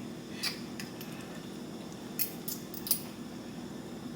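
A few light clinks and taps of kitchen utensils and containers, spread out over a steady low hum.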